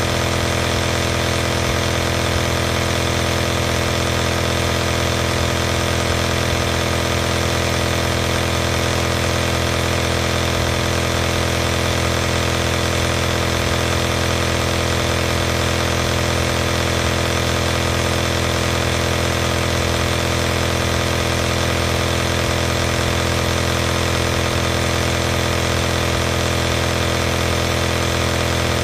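Compressor nebulizer running steadily: an even mechanical hum with a hiss over it.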